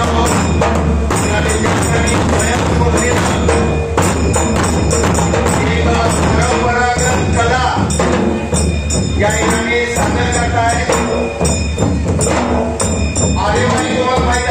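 A group of large double-headed dhol drums beaten with sticks in a fast, steady rhythm, with a metallic jingle running through it. A voice comes in over the drumming at times.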